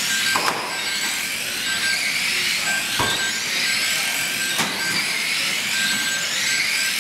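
Many small electric motors of 1/12th-scale RC stock cars racing together: a dense high whine that rises and falls as the cars accelerate and brake. Three sharp knocks stand out during it.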